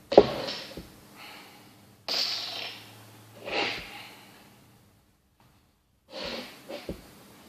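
A person breathing and sniffing close to the microphone: several short, noisy breaths, with a sharp click at the first one.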